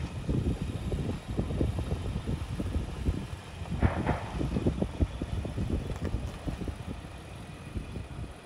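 Nissan Titan PRO-4X pickup's engine running at low speed as the truck crawls over rocks, with a brief louder noise about four seconds in.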